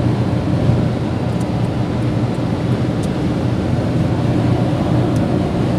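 Steady road noise inside a car's cabin at motorway speed: tyre and engine rumble with a constant low hum.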